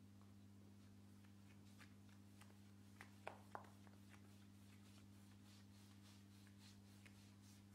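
Very faint strokes of a paintbrush laying linseed oil paint onto a wooden door, with a few soft clicks about three seconds in, over a steady low hum.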